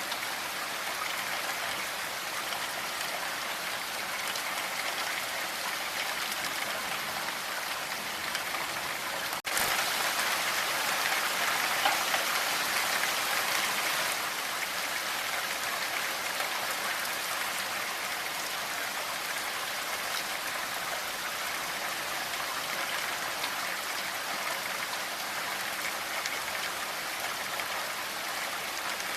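Steady, dense rainfall. It briefly cuts out about nine seconds in and is louder for the next few seconds before settling back to its even level.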